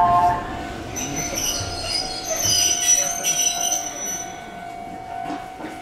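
Izuhakone Railway Daiyuzan Line electric train running on its rails, its steel wheels squealing high-pitched from about a second in until past the middle, over a steady humming tone and running rumble.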